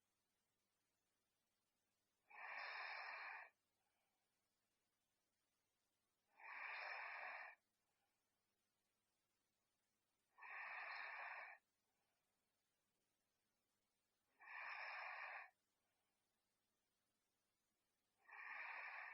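A sleeping person snoring. Five evenly spaced breaths come about four seconds apart, each about a second long, with near silence between them.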